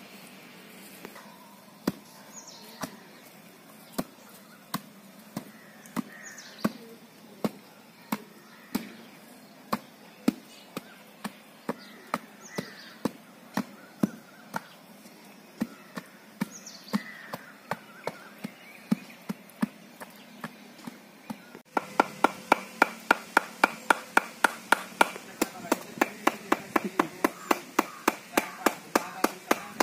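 Steady knocking, about two a second, as the soil along a wooden edging board is pounded by hand. About two-thirds of the way through it changes to louder, quicker hammer blows driving a wooden post into the ground.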